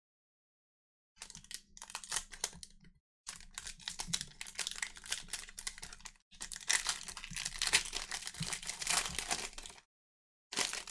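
Crinkling and tearing of a foil trading-card pack wrapper being ripped open, with the cards inside shuffled and handled, in several stretches of dense crackling.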